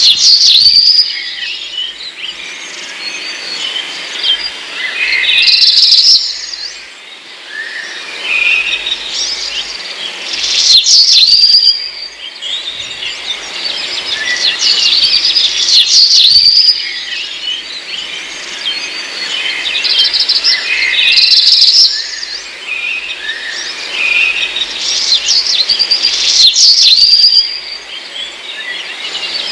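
Dense, continuous chirping and chattering of a large flock of birds, swelling loud about every five seconds.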